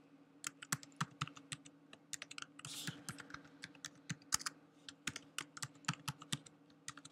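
Computer keyboard being typed on: a password being entered as a run of quick, irregular keystroke clicks, over a faint steady hum.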